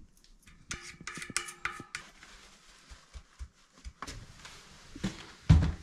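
Metal tools and bicycle parts clinking and tapping. A quick cluster of clinks with brief ringing tones comes about a second in, then a few lighter taps, and a single heavier thump near the end.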